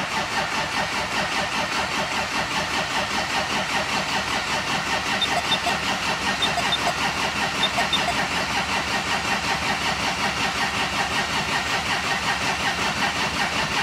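Triumph TR4's starter motor cranking the cold four-cylinder engine over and over without it firing, in a steady, evenly pulsing chug. The engine has sat for months and is being cranked without choke to build oil pressure.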